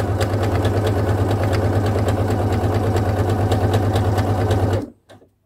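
Pfaff computerised sewing machine stitching a straight seam at a steady speed: an even motor hum with rapid needle strokes, stopping abruptly near the end.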